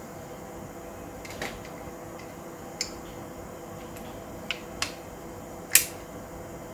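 A handful of small sharp clicks and taps from the parts of a Hi-Capa gas-blowback pistol being handled and fitted during reassembly. The loudest click comes near the end.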